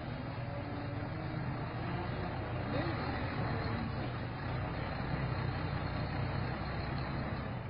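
Diesel engine of a tractor-trailer tipper running steadily while the trailer's body is raised to dump its load.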